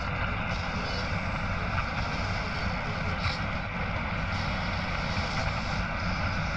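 Steady low rumbling drone with a hiss over it and no distinct events: an ominous ambient sound bed of the kind laid under horror film scenes.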